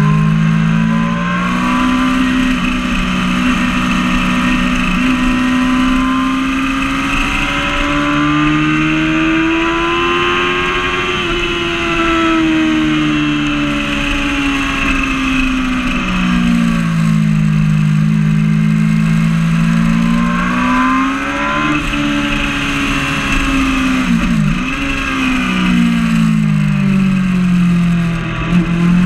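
Yamaha R6 (5EB) 600 cc inline-four engine at speed, heard from the bike itself, its note rising and falling as the revs climb and drop. There is a sharp momentary dip in pitch about three-quarters of the way through.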